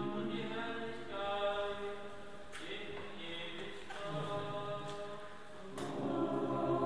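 Choir singing a slow, unaccompanied chant in long held notes, softer in the middle and swelling again near the end.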